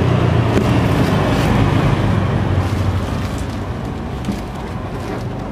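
Road traffic: a motor vehicle's engine passing, loudest in the first two seconds and then easing off, with a few light clicks over it.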